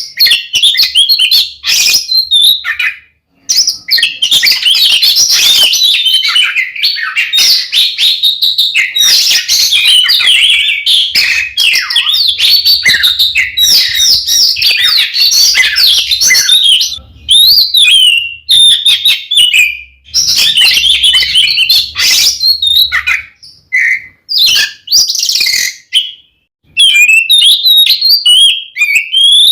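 Oriental magpie-robin (kacer) singing loudly in a fast, varied stream of whistles and chattering notes, with a few short breaks: the bird is in full, agitated song.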